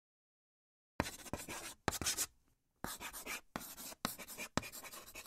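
Marker pen writing on a board: a quick run of short scratching strokes with small taps between them, starting about a second in after silence.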